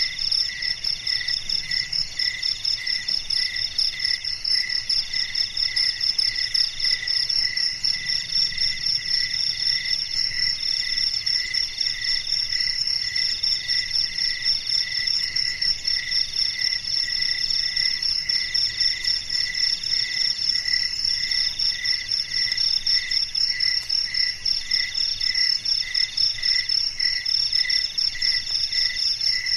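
A chorus of night insects, crickets among them, calling steadily. Several calls overlap: a high continuous trill, a lower call that pulses evenly, and a middle-pitched call that breaks off every second or so.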